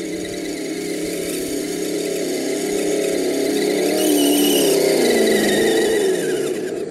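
Whine of a radio-controlled vehicle's electric motor and drivetrain as it drives through snow, growing louder as it approaches and dropping in pitch as it passes near the end.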